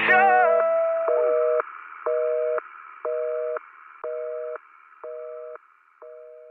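Telephone busy signal: a two-tone beep, each about half a second long, repeating once a second and fading out, over a faint line hiss. The song's last sung note dies away just as it begins.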